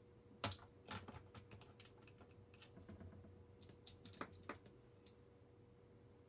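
A run of light, irregular clicks and taps, about a dozen spread over four seconds, the sharpest near the start: makeup items, a compact and a brush, being picked up and handled.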